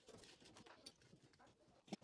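Near silence with faint scattered taps and scrapes of handling, and a light knock just before the end.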